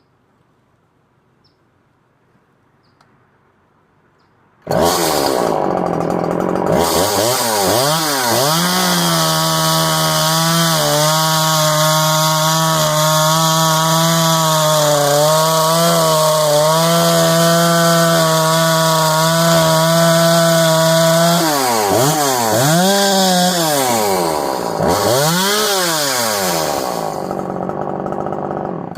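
Husqvarna 338 XPT top-handle two-stroke chainsaw, after a tune-up with a new primer bulb, fuel lines and fresh fuel, comes in suddenly about five seconds in and revs up and down. It then holds a steady high speed for about twelve seconds, drops and revs back up three times, and shuts off near the end.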